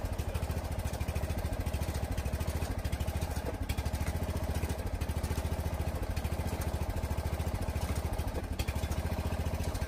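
Small engine of a hydraulic pump unit running steadily, driving the jack on a foundation pier as it lifts a settled brick column.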